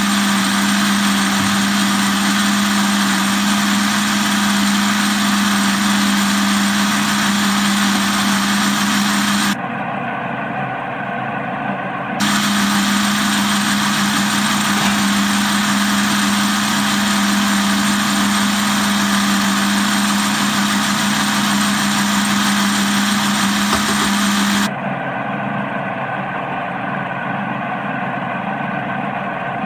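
Electric countertop blender running loud and steady with a strong hum, puréeing garlic and milk into garlic sauce. Its sound twice turns quieter and duller, losing the hum: for a few seconds about ten seconds in, and again near the end.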